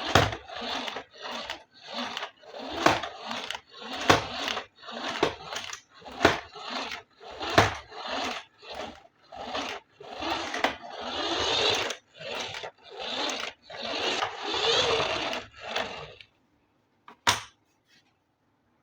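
Hands handling a toy's packaging and plastic parts: a run of rustles and scrapes with sharp clicks about every half second to second. It stops about sixteen seconds in, and one more click follows near the end.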